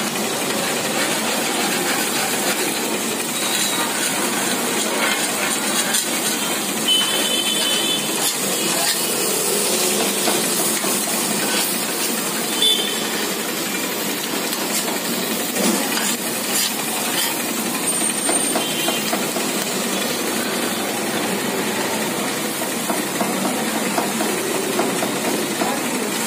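Kothu parotta sizzling on a flat iron griddle as a metal spatula scrapes and chops through it, a steady hiss with light scattered clinks of metal on iron. Street traffic runs underneath.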